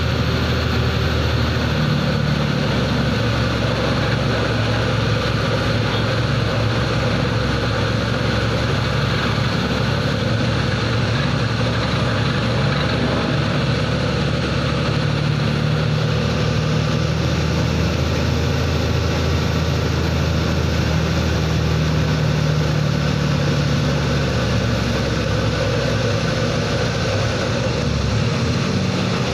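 Truck engine running steadily while driving, heard from inside the cab, its note shifting a little now and then with road speed.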